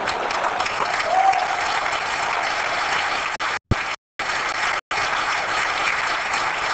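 Audience applauding, a loud, even clapping that is cut by brief dropouts twice, about halfway through.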